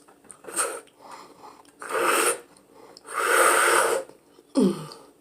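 A person breathing hard through the nose while eating boiled eggs with a full mouth: two loud, noisy huffs, the second longer, then a short grunt falling in pitch near the end.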